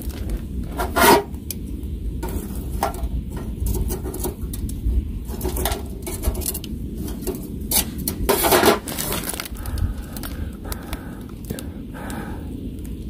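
Metal tongs clinking and scraping against a small stainless-steel wood-burning fire pit as the pine-cone fire in its firebox is poked and fed. Irregular clatters, the loudest about a second in and again around eight and a half seconds.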